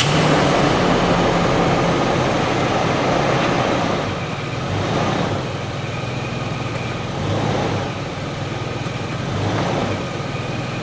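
Toyota 4Runner engine idling while its automatic transmission is run through drive and reverse. A faint high whine comes and goes from the transmission pump, howling because the transmission fluid is seriously low.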